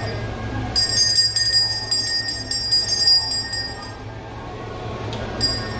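Small Buddhist ritual hand bell shaken in a rapid, bright ringing for about three seconds, starting about a second in and dying away. It rings briefly again near the end, over a steady low background hum.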